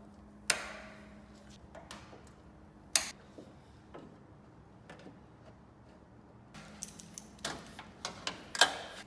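Sharp knocks and clicks from handling and fitting a car body's A-pillar panel back into place: two single knocks about half a second and three seconds in, the first ringing briefly, then a quicker run of clicks and knocks near the end.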